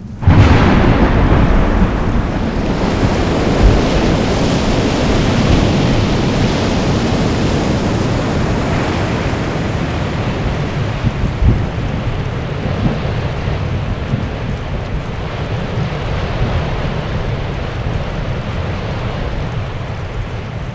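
Loud, steady rushing noise with a deep rumble. It starts abruptly and eases off gradually.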